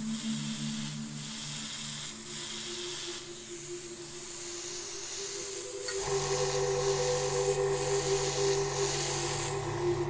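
Airbrush spraying white paint, a steady hiss that dips briefly a few times as the trigger is eased, over quiet background music that changes about six seconds in.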